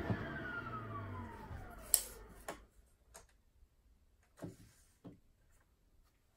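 Makita sliding miter saw's blade coasting down after a cut, a falling whine that fades out over about two and a half seconds, with a low hum that stops after about a second. Then a sharp click and a few light clicks and knocks as a tape measure is handled against the board.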